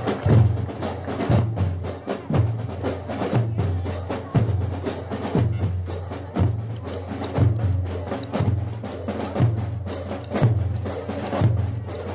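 School marching band drums playing a steady march beat: a bass drum hit about once a second, with quicker sharp clicking strokes between the beats.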